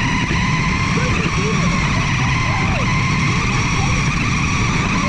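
Toy RC car running, heard from a camera mounted on the car itself: a steady high electric-motor whine over a dense rattling rumble from the wheels and chassis.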